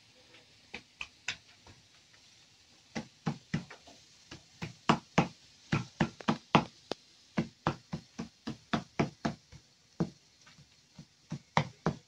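Large chef's knife chopping roasted tomatoes on a maguey leaf (penca): a run of quick knocks of the blade, about three a second, sparse at first and then steady, with a short pause near the end.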